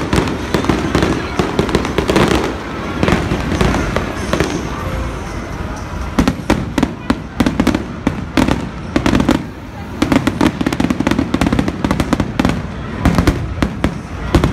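Fireworks going off in a rapid run of bangs and crackles, coming thickest in the second half.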